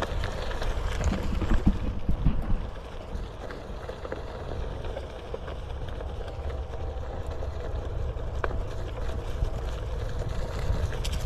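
Onewheel XR electric board riding along a bumpy dirt trail: the tyre rumbles over the ground under a steady hum, with rougher jolts about one to two seconds in.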